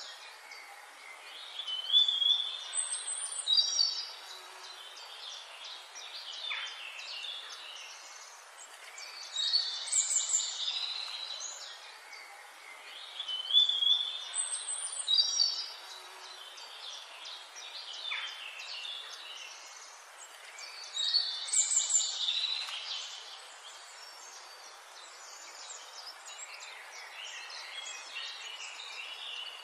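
Songbirds chirping and whistling high, quick phrases in loud bursts every few seconds over a steady hiss of forest background; the same phrases come back about every twelve seconds.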